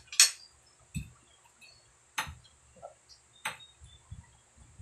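Metal fork clinking against a glass plate of noodles: three sharp clinks a second or more apart, with a softer knock about a second in.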